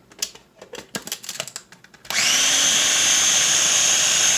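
A few light clicks and knocks, then about two seconds in a small food processor's motor switches on and runs steadily with a high whine, blending the tofu pudding mixture smooth.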